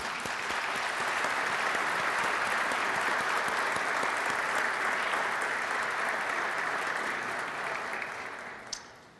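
An audience applauding, a steady patter of many hands clapping that dies away after about eight seconds.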